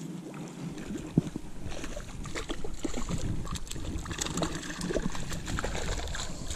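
A hooked fish splashing at the surface in the shallows at the bank as it is brought in, with scattered clicks and knocks of handling and one sharp knock about a second in.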